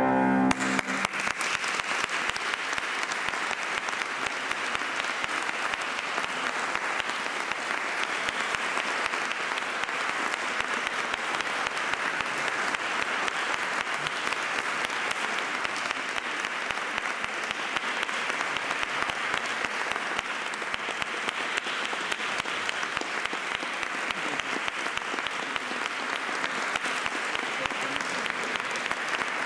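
Concert audience applauding steadily, starting as the last note of the music breaks off right at the start.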